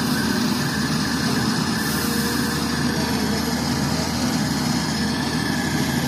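Diesel engine of an SDLG hydraulic crawler excavator running steadily while it scoops soil and lifts a full bucket.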